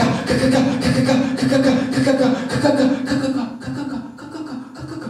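A man's voice performing non-verbal sound poetry into a microphone: a steady held tone broken by quick clicks and mouth noises. It grows quieter and sparser over the last second and a half.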